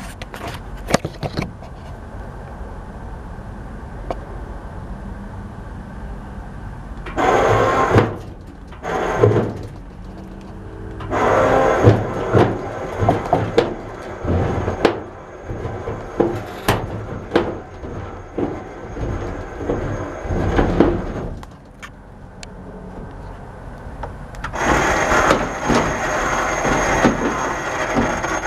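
Electric winch with a chain lowering a heavy compressor head, running in several bursts of rattling and mechanical noise, with scattered clanks and knocks between the bursts.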